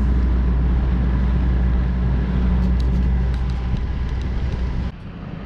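Boat motor running steadily with a low, even hum, under a hiss of wind and water. The sound cuts off suddenly near the end.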